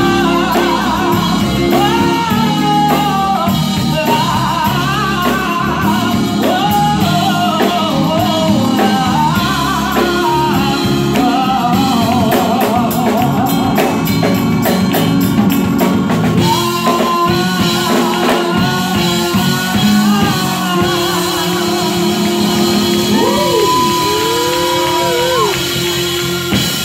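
Live band music: a woman singing lead over keyboards, drum kit and guitar, holding a long note about three-quarters of the way through.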